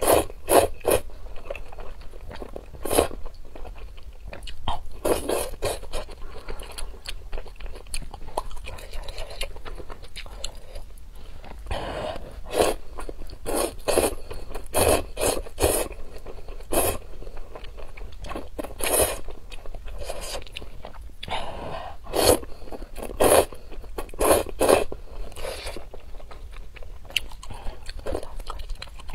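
Close-miked eating: sharp crunching bites and chewing, coming at irregular intervals, sometimes several in quick succession.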